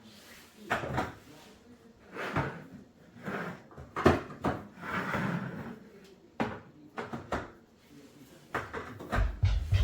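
Groceries being put away: canned goods and packages set down on pantry shelves while cupboard doors and drawers open and close, giving a string of separate clunks and knocks with some rustling.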